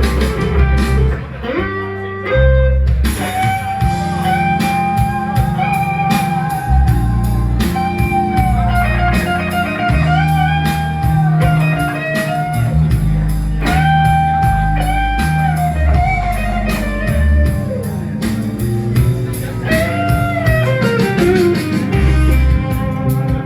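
Band playing blues-rock: a lead electric guitar plays long held notes with vibrato over bass and a steady drum beat, with a falling slide near the end.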